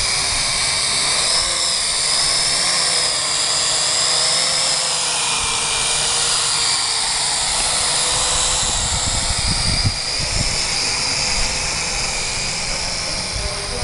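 The electric motors and propellers of a small HM 1315 FPV camera quadcopter drone whine steadily in flight, the pitch wavering slightly as it manoeuvres. Low buffeting noise rises about eight to eleven seconds in.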